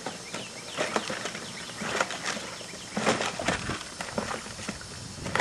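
Plastic toy lawn mower pushed back and forth through a mud puddle, making irregular clattering knocks and wet splashes over the steady hiss of a lawn sprinkler.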